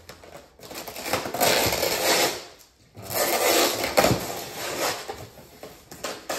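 Clear packing tape being peeled off a styrofoam packing shell in two long, crackling tearing pulls, with a short knock about four seconds in.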